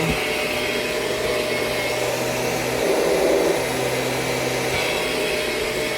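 2000 Kirby G6 upright vacuum with a G5 power nozzle running steadily, its motor drone swelling briefly about three seconds in. It is making a noise that the owner puts down to a really tight drive, probably something up in the power nozzle.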